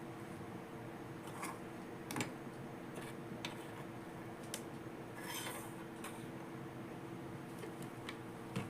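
Small plastic toy pieces and packaging being handled: scattered light clicks and taps, with a short rustle about five seconds in, over a faint steady hum.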